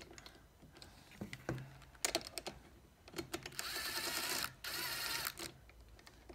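Makita 18V cordless driver running in two short bursts, about a second each with a brief gap between them, backing out a 10 mm bolt of the transmission's shift mechanism. Light metal clicks and knocks from handling parts come before it.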